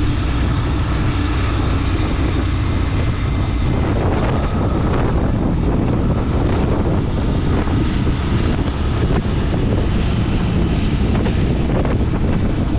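Wind buffeting the microphone over the steady running of a moving vehicle, a loud, even rumble with no breaks.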